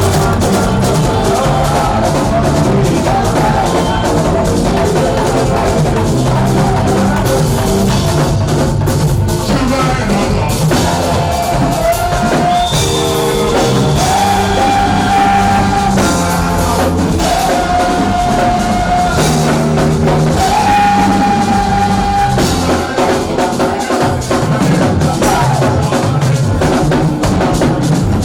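Live church music with drums, bass and keyboard, with long held sung or keyboard notes over a steady beat.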